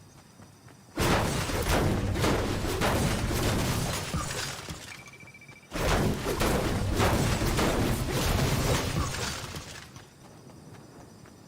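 Two loud, sudden crashes, about a second in and again near six seconds, each dying away over several seconds.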